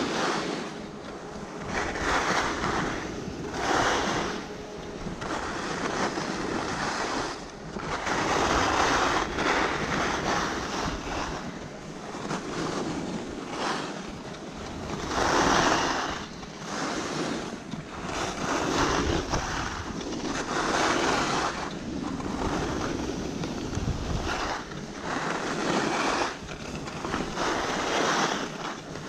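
Skis carving down a groomed slope: the edges scrape and hiss over the snow, swelling with each turn every couple of seconds, with wind rushing over the microphone.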